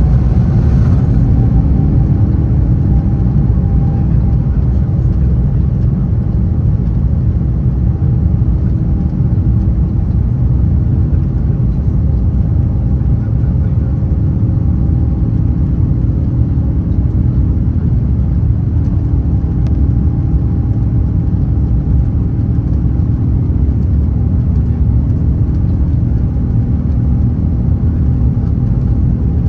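Airbus A330-900neo's Rolls-Royce Trent 7000 turbofans at takeoff power, heard inside the cabin: a loud, steady rumble. An engine drone rises in pitch over the first couple of seconds, then holds.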